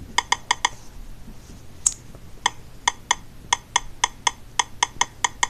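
Key-press clicks from a tablet's on-screen keyboard as letters are typed one by one: a quick run of about twenty short, pitched ticks, in small bursts with a brief pause between.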